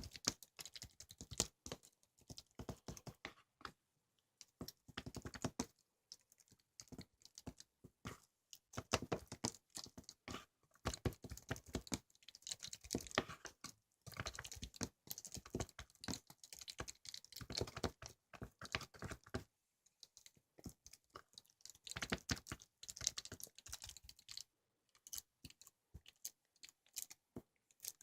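Irregular bursts of quick, light clicks and taps with some crinkling, broken by short pauses.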